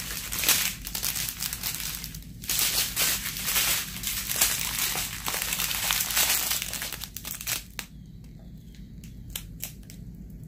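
Clear plastic packaging crinkling as strips of small sealed bags of diamond painting drills are handled and turned over. The crinkling is dense for about the first eight seconds, then thins to a few soft crackles.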